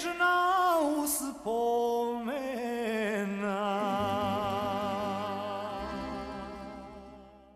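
Closing phrase of a Bosnian sevdalinka: a male voice sliding up into long held notes with a wide vibrato over instrumental accompaniment. The last note fades out to silence near the end.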